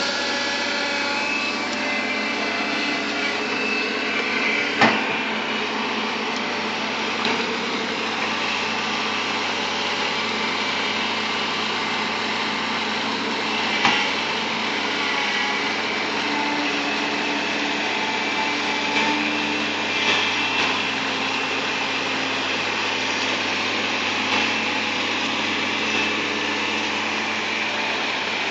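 Bulldozer engine running steadily, with a few sharp clanks about five, fourteen and twenty seconds in.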